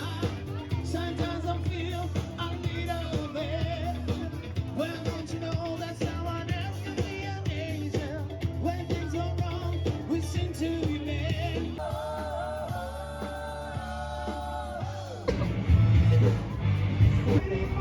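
Background pop song: a singer over a steady band backing, with one long held note about twelve seconds in, then the music gets louder and more beat-driven near the end.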